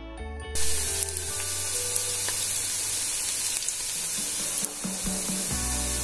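Bread pakoda dough balls deep-frying in hot oil, a steady sizzle that starts about half a second in, with background music.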